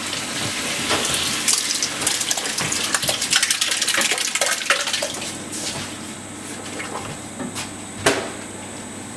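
Chopped tomatoes poured from a large tin into the hot pan of a Firex CBTE030 tilting kettle over seared beef, splashing and crackling in a dense sizzle that dies down after about five seconds. A single sharp knock comes near the end.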